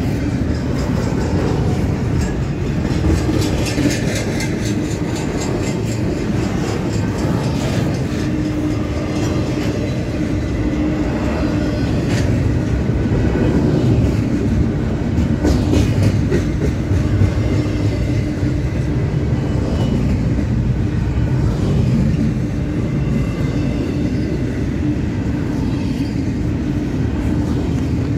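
Double-stack intermodal freight train of container-laden well cars rolling past: a steady heavy rumble of steel wheels on the rails, with scattered clacks as the wheels cross rail joints.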